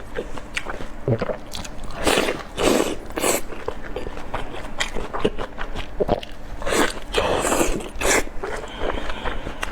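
Close-miked eating of large steamed dumplings: wet chewing with many small clicks, and two louder stretches of biting and mouth noise, one about two seconds in and one about seven seconds in.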